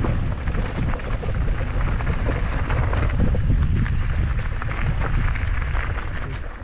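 Wind buffeting the microphone of a mountain bike's on-board camera, over a low rumble with rapid clicking and rattling from the bike rolling over a rough trail.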